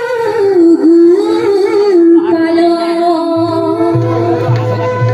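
Assamese dihanaam devotional song: a woman's solo voice through a microphone, holding long notes that bend and waver. About three seconds in, a drum joins with a steady beat of about two strokes a second.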